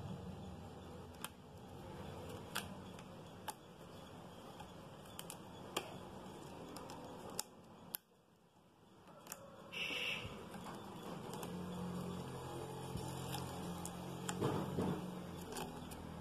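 Quiet handling noise as a rubber band is wound tightly around a balloon's neck on a plastic tube: scattered small clicks and rubbing of rubber and plastic.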